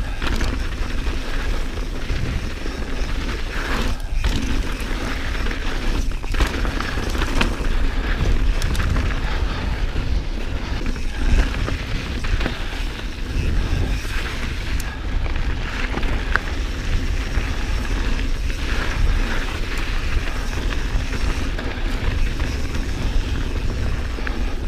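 Wind buffeting a mountain biker's camera microphone as a steady deep rumble, over the noise of a 2019 Santa Cruz Bronson's tyres rolling on a dirt trail. A few knocks and rattles come from the bike over bumps, a handful of times.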